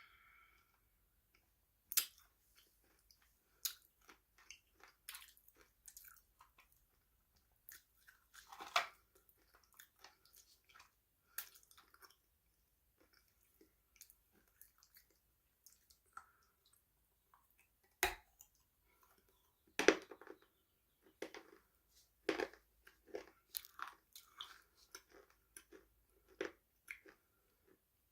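Close-up chewing and crunching of crisp food, in irregular sharp crackles with a few louder bites standing out.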